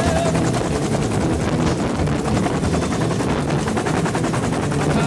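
Bell UH-1 Huey helicopter in flight, heard from the cabin with the side door open: the two-blade main rotor's rapid, even beat over a steady rush of noise.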